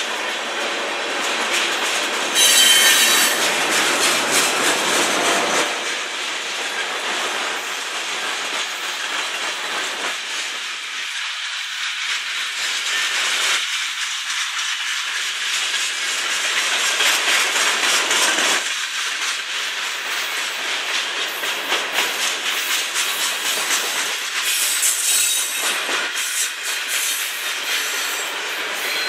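Freight cars of a passing train, tank cars and lumber-loaded centerbeam flatcars, rolling by: steady wheel-on-rail noise with rapid clicking over the rail joints. High wheel squeal comes in briefly about three seconds in and again near the end.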